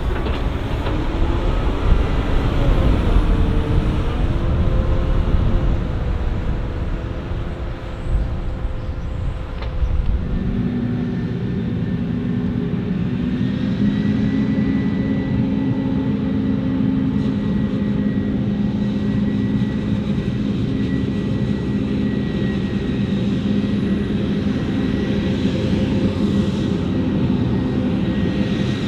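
Heavy diesel harvesting machinery running during maize chopping. For the first ten seconds or so the pitch shifts and glides over a rumble; then it settles into a steady engine drone with a high whine above it.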